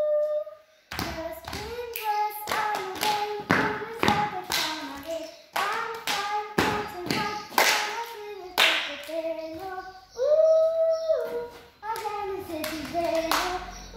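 Singing with sharp hand claps and body slaps keeping time, a body-percussion routine. Held sung notes sit between the strokes.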